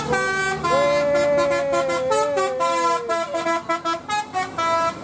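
Tour bus's telolet basuri melodic horn playing a tune: a few notes, then one long note that wavers in pitch, then a run of short, quick notes near the end.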